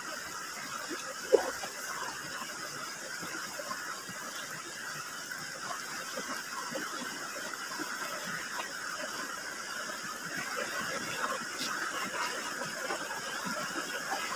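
Steady rush of a shallow river, with close-up wet chewing and small clicks of fingers working food. One sharp click stands out about a second in.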